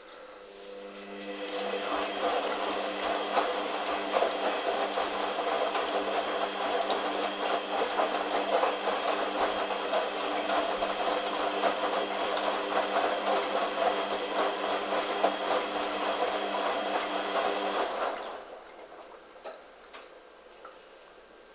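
Hoover washing machine running: a steady motor hum and whine with a rattly texture. It builds up over the first couple of seconds, holds level, then cuts off abruptly about 18 seconds in.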